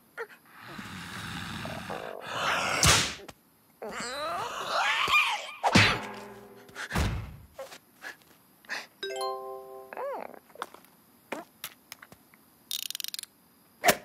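Cartoon slapstick sound effects with music: a rushing whoosh that builds to a sharp hit, a heavy thunk, scattered clicks and knocks, a short ringing ding about two-thirds of the way through, and another sharp hit near the end.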